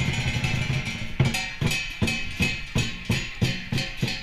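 Dragon dance drum and cymbals playing: a dense, fast roll for about the first second, then steady strokes about three a second, each cymbal crash ringing on.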